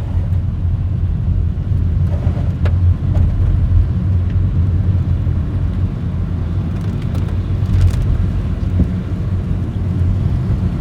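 Steady low road and engine rumble inside a moving car's cabin, with a few faint ticks.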